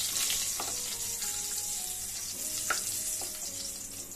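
Hot refined oil sizzling in a kadai, with a steady hiss that slowly fades. A few light clicks sound over it.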